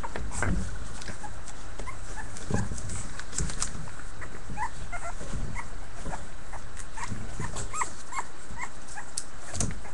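A litter of young puppies whimpering and squeaking in short, high little cries, with scratchy clicks of paws and claws scrabbling on newspaper among them.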